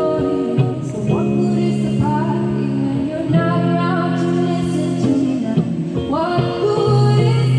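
Live band music with singing over guitar and a steady bass line, sustained held notes throughout.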